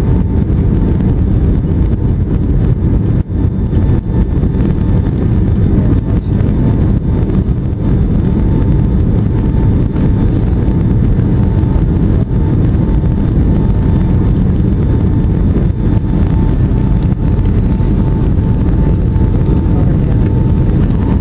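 Jet airliner cabin noise heard from a window seat over the wing in flight: a steady, heavy rush of engine and airflow noise with a faint constant whine.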